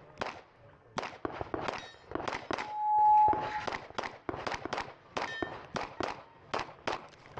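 A shot timer's steady start beep, lasting under a second, near the middle. After it comes a rapid string of 9 mm pistol shots from a Glock 17 Gen 5, about three a second. A few sharp cracks are also heard before the beep.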